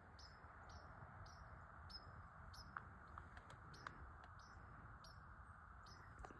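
Faint songbird chirping: a short, high, falling chirp repeated steadily about every half second.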